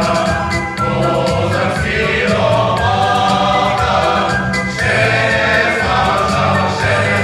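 Folk choir singing a Ukrainian song in several voices, over an instrumental accompaniment with a steady, alternating bass line.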